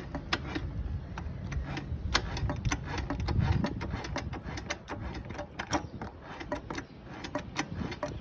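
Irregular metallic clicking and knocking, a few strokes a second, as the Yamaha Fazer 250's engine is turned over by hand with a wrench: the knock that comes from the cylinder is taken by the mechanic for piston skirt slap.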